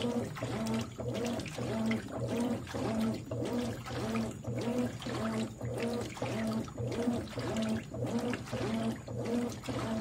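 Consul 13 kg top-load washing machine agitating a full load of clothes in water: the agitator swishes back and forth about three strokes every two seconds, with water sloshing over a steady motor hum.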